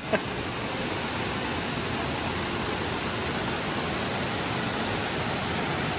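Steady rush of falling water.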